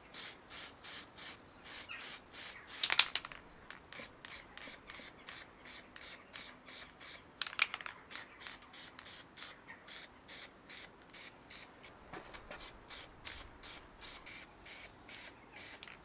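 Aerosol primer spray can hissing in short, evenly repeated bursts, about three a second, as primer is dusted onto bare steel plates. A brief louder clatter about three seconds in, and a smaller one about seven and a half seconds in.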